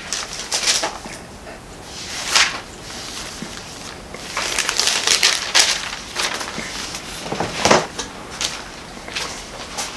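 Pages of a Bible being turned and handled in a run of irregular rustling, crinkling swishes, the louder ones about two and a half, five and seven and a half seconds in.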